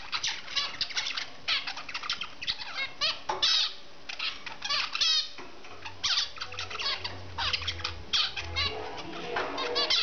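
Caged zebra finches calling: a rapid, continual series of short, nasal chirps and beeps, with a few longer, louder calls in the middle.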